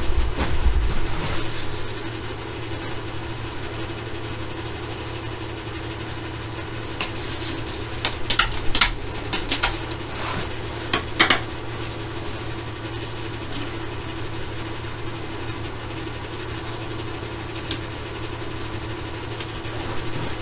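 Wood lathe running steadily with a low motor hum, the workpiece spinning in the chuck. About eight to eleven seconds in come a few sharp clicks and a brief high whine, the workpiece being touched as it turns.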